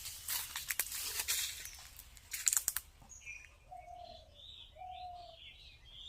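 Outdoor birds chirping and calling, including two short whistled notes a little over a second apart. For the first three seconds a louder crackling rustle covers them, then stops.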